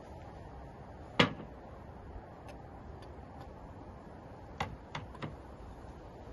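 A sharp knock about a second in, then three lighter clicks close together near the end, as a wooden cutting board and a knife are set down on a glass tabletop, over faint garden background.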